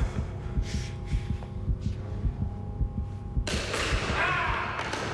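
Dramatic soundtrack: a low throbbing pulse like a heartbeat under a few held tones. About three and a half seconds in, the tones stop and a loud rush of noise comes in over the pulse.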